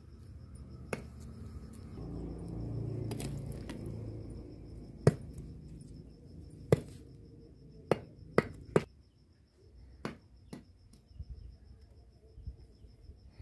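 A curved iron blade striking a hard earthen floor as small eels are chopped on it: about a dozen sharp, irregular knocks and clinks, bunched most closely around the middle.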